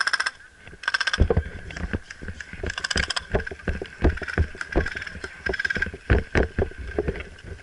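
Short bursts of very rapid clicking fire from an airsoft electric gun, over irregular low thuds of footsteps and movement, about two or three a second.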